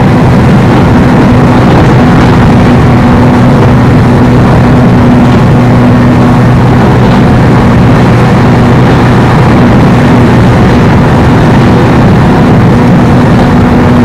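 Running noise inside a 103-series electric commuter train under way: a loud, steady rumble of the train on the rails with an even low hum underneath.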